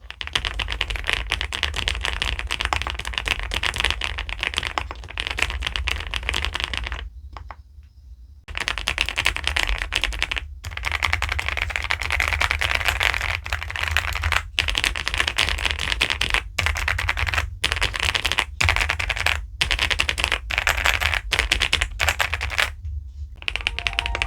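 Fast, continuous typing on an SPM PL87W mechanical keyboard with pebble-shaped keycaps. The clicks come in quick runs, stopping for about a second and a half around seven seconds in and briefly every second or two after that.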